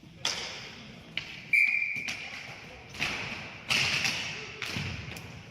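Ball hockey play: a series of sharp echoing knocks and clacks from sticks and the ball striking the boards and floor, about six in all. A brief high-pitched tone sounds about a second and a half in.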